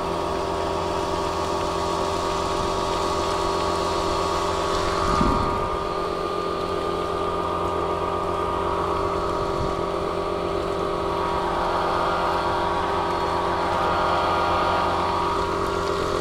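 Pressure washer running steadily while spraying water to rinse mud off a motorcycle: a constant motor hum under the hiss of the spray, with a brief knock about five seconds in.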